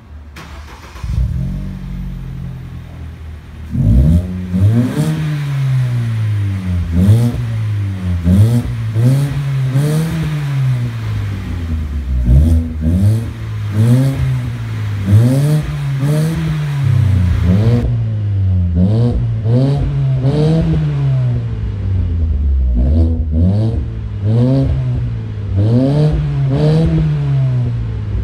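2013 Ford Focus's four-cylinder petrol engine heard through an aftermarket axle-back exhaust with dual tips, idling steadily, then from about four seconds in revved again and again, each rev climbing and falling within a second or two, up to around 4,000 rpm.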